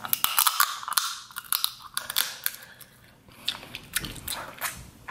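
Snow crab leg shells cracking and crunching as they are bitten and pulled apart by hand: a quick run of sharp cracks and clicks, densest in the first two seconds, then a few scattered snaps.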